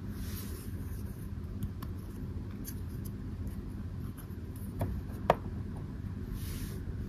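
Small plastic toy pieces being handled and set down in a toy dollhouse: a few light clicks and taps, the sharpest a little over five seconds in as a plastic figure is stood on the floor, over a steady low hum.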